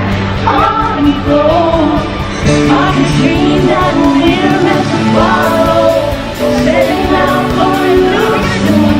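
Music with a voice singing a melody over sustained instrumental notes.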